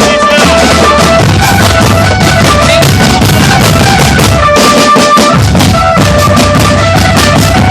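Drum band playing loudly: a fast, dense beat of marching drums and bass drums under a melody of held notes from the band's melodic instruments.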